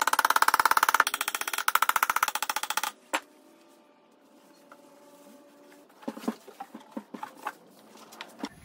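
A small hammer taps very rapidly on a pine frame, each strike ringing, like a metallic drum roll, and stops about three seconds in. Then come faint rubbing and a few light knocks as the wood is handled.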